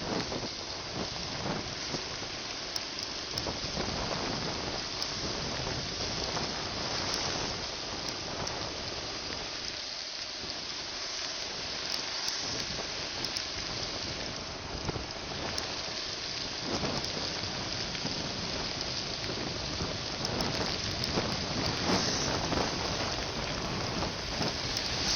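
Heavy rain falling steadily, with many drops striking close to the microphone.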